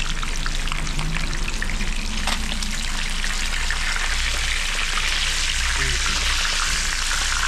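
Small mojarra fish frying in hot oil, sizzling steadily with many small crackles and pops.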